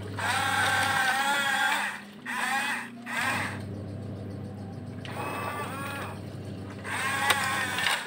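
Electric drive motors of a Huina 1569 remote-control toy bulldozer whining in spells of a second or two, the pitch wavering up and down as it drives back and forth pushing river stones; a sharp click near the end.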